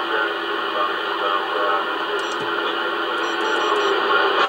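CB radio speaker on AM giving a steady rush of static from a weak, barely readable signal, cut off suddenly near the end.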